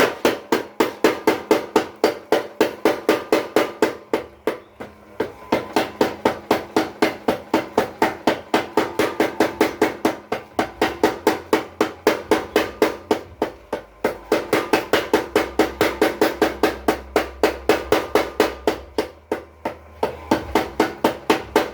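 Blacksmith's power hammer pounding in a rapid, even run of blows, about five a second, each with a metallic ring. The blows ease off slightly a few times, and a low hum joins about halfway through.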